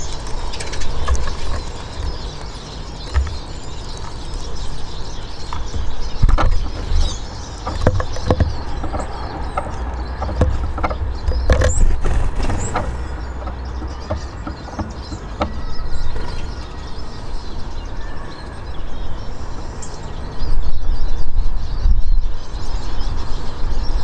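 Steady low outdoor background rumble, louder near the end, with scattered sharp clicks in the middle.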